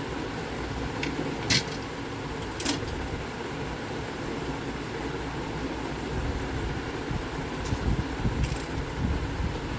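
Steady whir of a running fan, with a few sharp clicks of small tools on the work bench.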